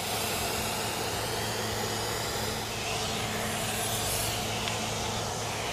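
Aerosol can of Owner's Choice foaming tire shine spraying in a steady hiss onto a tire sidewall, laying down a coat of white foam.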